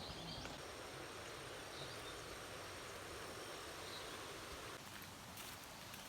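Outdoor park ambience: a steady, even rush of background noise, with a thin, steady high insect buzz and a couple of faint bird chirps.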